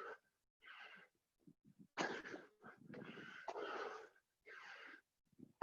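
Heavy, hard breathing of people out of breath from doing burpees: a string of gasping breaths, each about half a second long, with short gaps between them.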